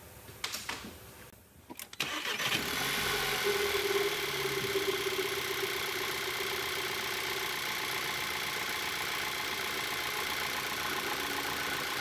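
Volkswagen Jetta GLI's four-cylinder engine starts about two seconds in and then idles steadily. It is running pretty good, without the misfire, after work on its coil connectors.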